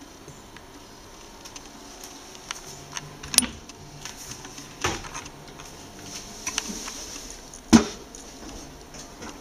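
Scattered clicks and knocks over a faint steady hiss, with three louder knocks about three and a half, five and nearly eight seconds in, the last one the loudest.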